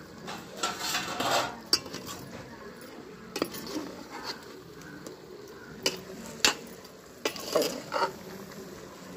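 A metal ladle stirring chicken curry in an aluminium pot, scraping and clinking against the pot several times over a steady sizzle.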